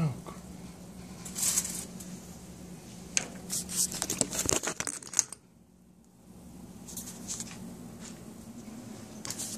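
Handling noises: rustling and light clicks and knocks, as of parts and tools being moved about, over a low steady hum. Everything drops out for about a second midway, then the hum and the occasional click return.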